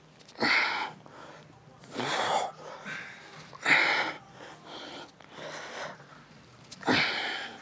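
A man breathing out hard through his mouth and nose with the effort of lifting dumbbells: four loud, short exhalations, with fainter breaths between them.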